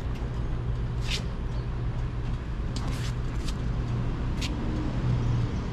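A vehicle engine running steadily with a low hum, with about five brief, sharp high-pitched ticks scattered through it.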